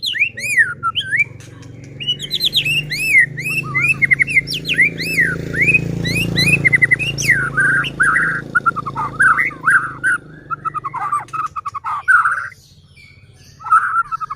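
White-rumped shama (murai batu) singing a fast, varied song of looping whistled notes and rapid trills. It pauses briefly near the end, then starts again.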